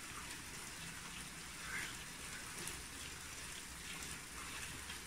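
Blended chilli, shallot and garlic paste sizzling steadily in hot oil in a steel pot while milk is poured in; a fairly faint, even hiss.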